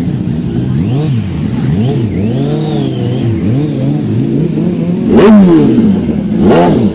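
Yamaha R15 V3's 155 cc single-cylinder engine running under way, its pitch rising and falling again and again as the throttle is opened and eased. There are two brief louder surges, about five and six and a half seconds in.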